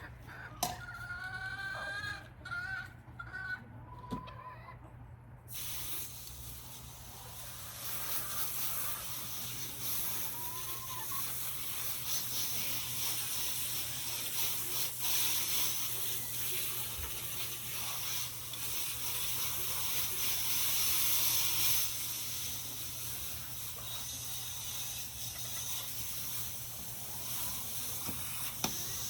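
Chickens clucking and calling in short bending notes. About five seconds in, a steady hissing rush of running water starts and carries on, louder than the birds.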